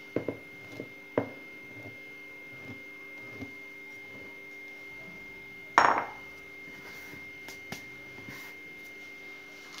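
Ceramic bowl clinking and knocking as flour is tipped and tapped out of it into a plastic mixing bowl: a few light knocks in the first second or so and one sharp knock about six seconds in, over a faint steady hum.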